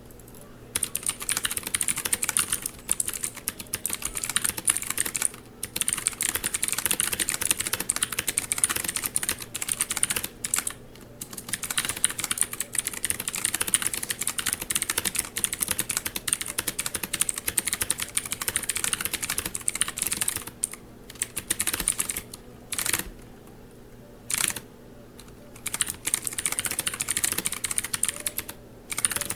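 Mechanical keyboard being typed on quickly, a dense run of key clacks that starts about a second in and breaks off in several short pauses, more often in the second half.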